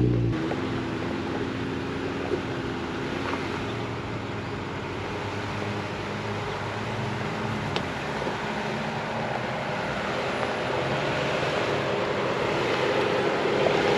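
A Jeep Wrangler Rubicon's engine running as it crawls down a rough dirt trail, growing louder toward the end as it comes closer.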